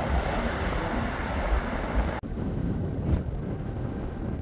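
Jet airliner engine noise as the plane climbs away after take-off, a dense rumble. About two seconds in it cuts off abruptly and gives way to wind buffeting the microphone over a distant low rumble.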